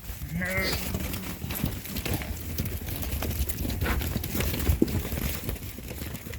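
Sheep hooves clattering and knocking on a hard floor as a flock is loaded, with a short bleat about half a second in.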